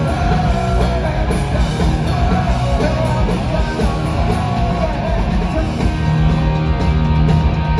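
Punk rock band playing live, heard from the crowd: distorted electric guitars, bass and drums, with the singer's vocals over them.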